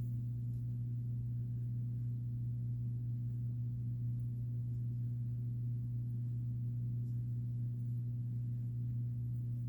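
A steady low electrical hum: one tone with a fainter overtone above it.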